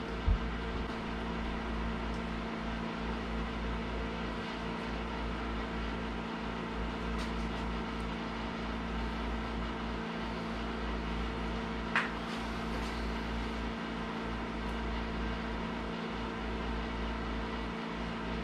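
Steady machine hum with a constant low tone, and a single sharp click about twelve seconds in.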